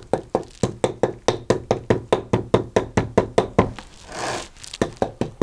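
A brush with a wooden back is tapped rapidly against a chainsaw chain's cutter teeth, giving sharp knocks at about five a second. The tapping knocks burrs and loose metal filings off the freshly filed edges. A short brushing scrape a little past the middle breaks the run before the tapping resumes.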